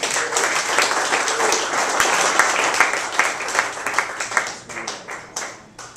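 Audience applauding, with dense clapping that begins at once and thins out to scattered claps over the last second or two.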